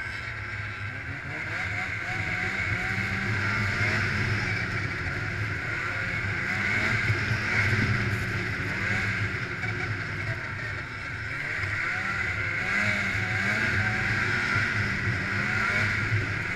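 Snowmobile engine running under way, its revs rising and falling with the throttle several times, over the rush of the track and wind.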